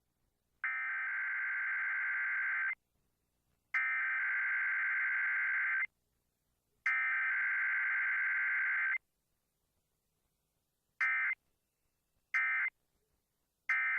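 Emergency Alert System SAME data tones, the buzzy, screechy digital bursts of a Required Weekly Test: three header bursts of about two seconds each with a second's gap between, then, about two seconds later, three short end-of-message bursts about a second and a half apart.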